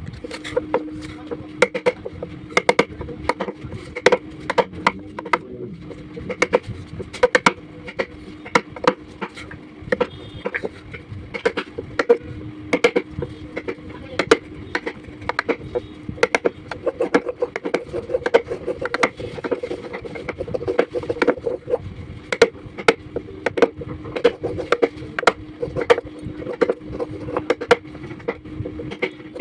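Woodworking: many irregular sharp knocks and clicks of a tool on wood, a few a second, over a steady low hum.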